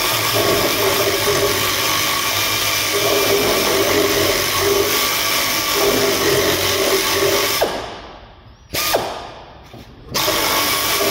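Pneumatic air ratchet running on a nut under a car, a steady hissing whir. It runs for several seconds, stops, gives a short burst, then runs again briefly near the end.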